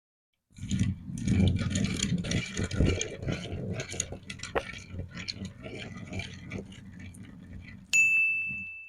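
Sticky crackling and clicking of glitter slime being squeezed and worked by hand, dense at first and then thinning out. About eight seconds in, a sudden high ringing tone starts and fades away.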